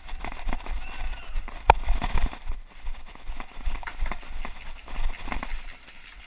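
Footsteps of a paintball player running, irregular thuds with a low rumble, and one sharp pop about a second and a half in.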